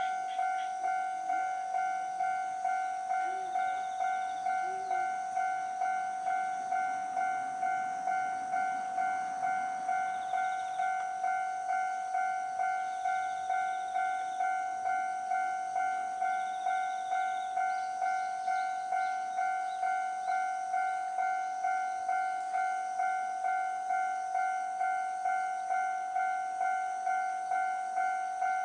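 Japanese electronic level-crossing warning bell ringing: a single steady tone struck over and over in a regular rhythm, signalling that a train is approaching and the crossing is closed.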